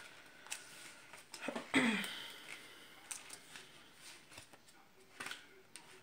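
Pages of a small paper guidebook being leafed through: scattered soft rustles and taps. About two seconds in there is a louder rustle with a short breathy, falling sound from the person.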